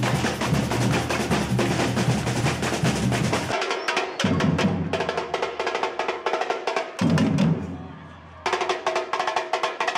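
Festival drum band playing: rapid snare-drum rolls over bass-drum beats. The playing changes abruptly several times, with a quieter stretch about eight seconds in.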